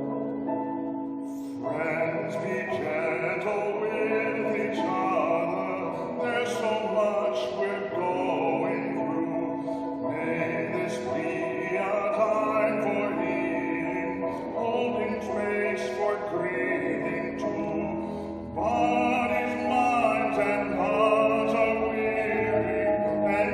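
Classical-style sacred music: a solo voice singing over held accompaniment notes.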